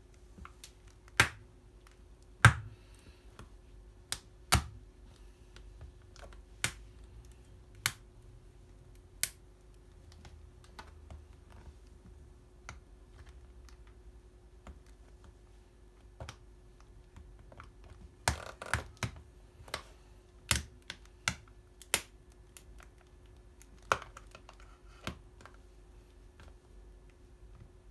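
Metal track spikes pressing and scraping on a plastic pocket calculator: sharp, irregular clicks and taps of the spikes on its plastic case and keys, with a quick cluster of clicks about two-thirds of the way through.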